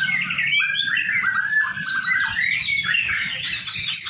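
White-rumped shamas (murai batu) singing in their cages, with several birds' varied whistled phrases overlapping. A fast run of repeated short notes stands out between about one and two and a half seconds in.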